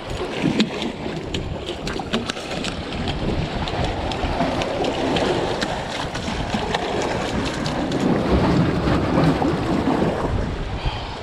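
Wind buffeting the microphone and lake water washing against a concrete breakwater wall, with scattered sharp clicks and taps throughout.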